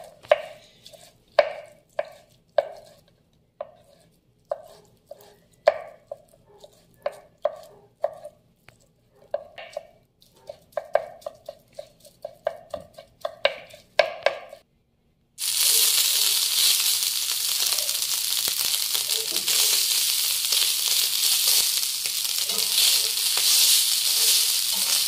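A kitchen knife chopping rehydrated soy on a wooden cutting board, with irregular knocks about one or two a second. About fifteen seconds in, after a brief silence, this gives way to a steady loud sizzle as the chopped soy fries in a little oil on a comal.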